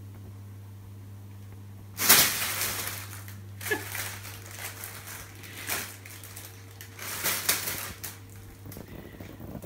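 Clear plastic bag crinkling and rustling in loud, irregular bursts as a Bengal cat scrambles around inside it, starting about two seconds in. A steady low hum runs underneath.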